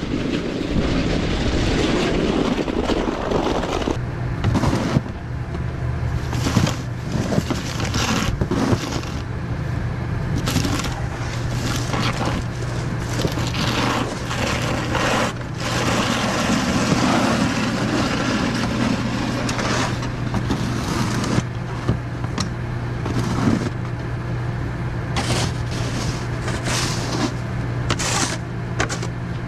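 Snow shovel scraping and crunching through icy slush on pavement in many short strokes, while a skid steer's engine runs steadily from a few seconds in.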